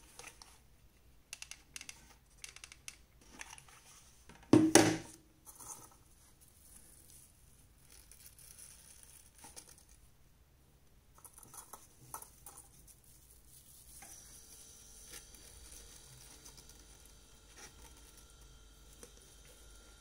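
Paper being handled during a craft: scattered small clicks and rustles, with one loud, brief rustle of paper about five seconds in.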